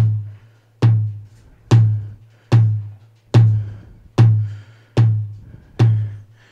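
Kick drum sound from an electronic drum pad, struck eight times at an even pace of about one hit every 0.8 seconds. Each hit is a deep thump with a sharp click at the start.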